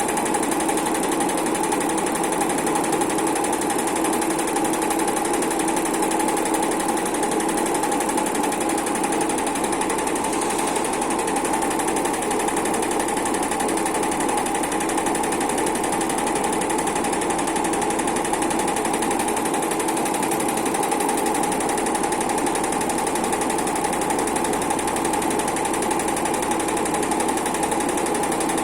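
Automated heating-wire sewing machine running continuously, stitching wire onto a grid: a steady, fast, even rattle of the needle mechanism over a constant hum.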